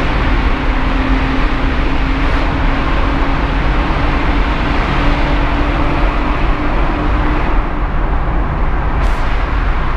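BMW E36 driving through a tunnel, with loud, steady engine and road noise. A single engine hum climbs slightly over the first several seconds, then fades about three-quarters of the way in.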